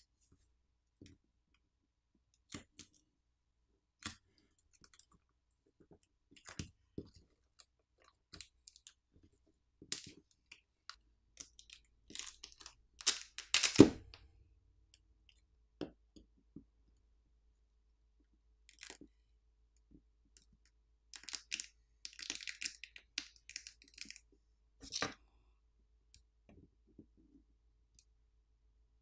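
Thin plastic battery pull-pouch film on a Google Pixel 10 being pulled and handled: scattered small clicks and taps, with a loud run of crinkling and crackling about halfway through the first half and another run of crackling near the end.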